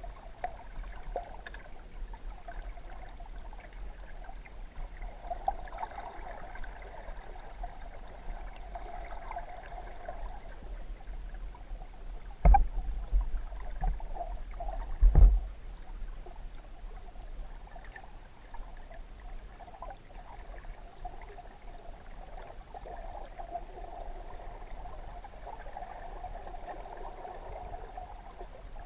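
Muffled water sound heard through a submerged camera, a steady wash with a low rumble underneath. Two heavy, dull thumps stand out, about twelve and fifteen seconds in.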